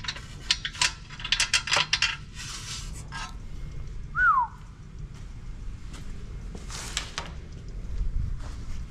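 Metal tools and bolts clinking and rattling while exhaust bolts come out under a car, with a short falling whistle-like chirp about four seconds in and a brief hiss near seven seconds.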